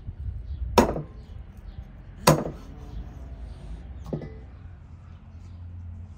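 A large curved cleaver chopping raw lamb on a wooden cutting board: two sharp chops about a second and a half apart, then a lighter third chop.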